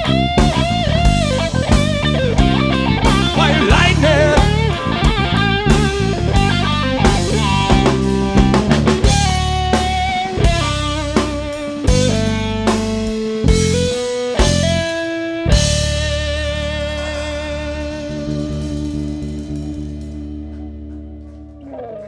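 Blues-rock band playing the song's ending: a bending guitar lead over bass and drums, then a run of separate stop-time hits, and a final chord left ringing and slowly fading over the last several seconds.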